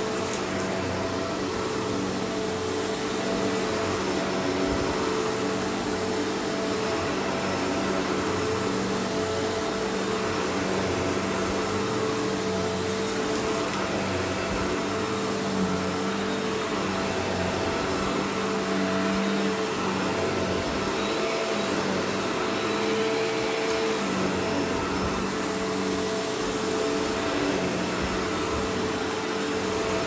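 Shark Rotator Powered Lift-Away upright vacuum cleaner running steadily while pushed over carpet: a constant motor hum with a few steady tones under an even rushing noise.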